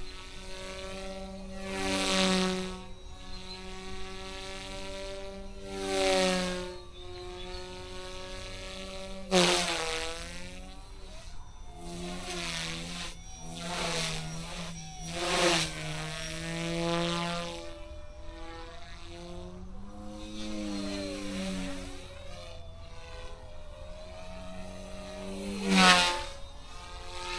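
Eachine E120S small electric RC helicopter in flight: a steady buzzing whine from its motor and rotors that swells loudly several times as it sweeps close past, the pitch dropping as each pass goes by and shifting as it manoeuvres.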